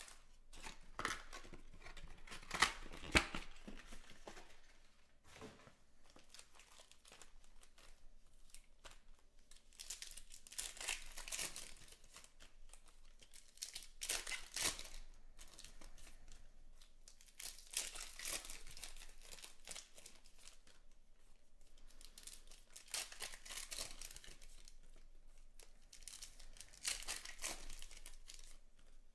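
Foil trading-card packs being torn open and their wrappers crinkled, one pack after another, in bursts of tearing every few seconds.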